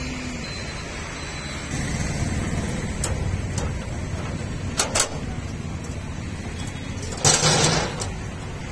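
Metal clinks from the rear tailgate's latches on a small goods truck being released, then a rattling metal clatter lasting under a second about seven seconds in as the tailgate is let down. A steady low rumble runs underneath.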